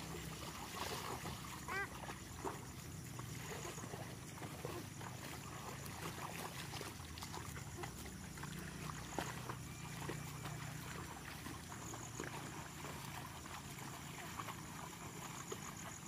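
A water buffalo and a person wading through a flooded, muddy rice paddy: irregular sloshing and splashing of hooves and feet in shallow water.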